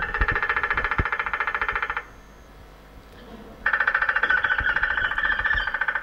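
Recorded bird sounds played over a loudspeaker: a woodpecker's drumming roll of rapid, evenly spaced strokes that stops about two seconds in. After a short pause, a second fast pulsed run starts about three and a half seconds in.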